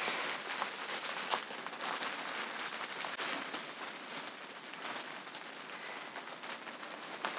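Heavy rain falling steadily, with a few sharp taps scattered through it.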